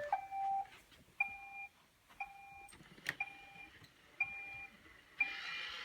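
Roomba robot vacuum beeping as it is switched on: a short two-tone beep about once a second, then a steady hiss of its motor starting about five seconds in.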